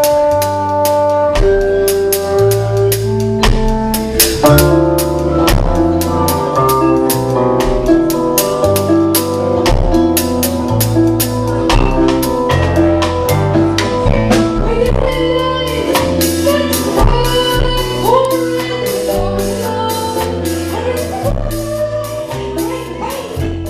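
Live band music: electric bass line, drum kit with cymbal hits and trombone playing together, with a woman's voice singing over it in the second half.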